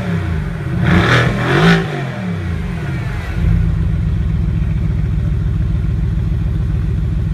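Mercedes-AMG GT engine revved twice in quick succession, the pitch rising and falling with each blip, then settling into a steady idle about three and a half seconds in.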